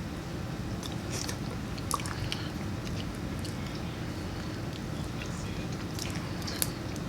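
Close-up mouth sounds of someone eating boiled peanuts: chewing, sucking and scattered wet clicks, the sharpest about two seconds in and near the end, over a steady low hum.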